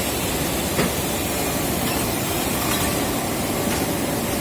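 Automatic cable coil wrapping machine running in a cable factory: a steady mechanical din with a light click about a second in.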